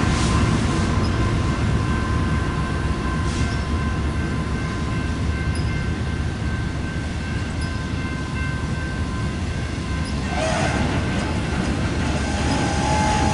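BNSF freight train rolling past on the adjacent track: a steady low rumble of wheels on rail, with thin steady ringing tones above it. About ten seconds in, a brief hiss rises, and a higher tone enters near the end.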